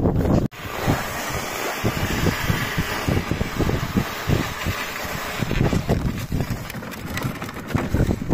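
Wind buffeting the microphone in irregular low gusts over a steady rushing hiss, with a sudden brief dropout about half a second in.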